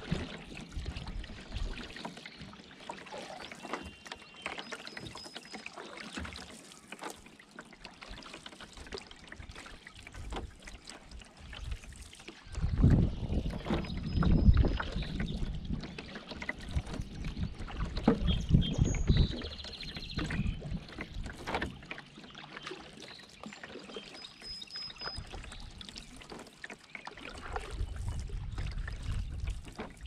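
Canoe paddle strokes dipping and dripping in calm river water, with short high birdsong calls a few times. There is a stretch of low rumbling around the middle and again near the end.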